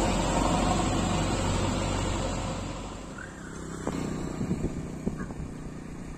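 Diesel engine of a JCB backhoe loader running as the machine drives along, fading away over the first three seconds. After that it is quieter, with a few faint knocks.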